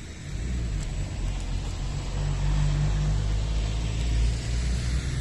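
A motor vehicle's engine running close by: a steady low hum that comes in about a third of a second in and holds.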